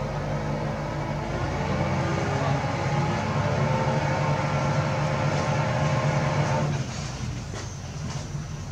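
A steady, low mechanical hum with a droning pitch that stops abruptly about seven seconds in.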